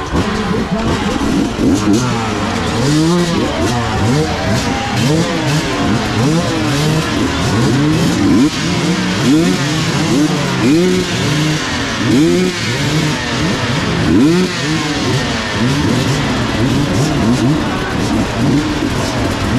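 Motorcycle engine revving up and dropping back again and again while being ridden hard, its pitch swelling and falling about once a second.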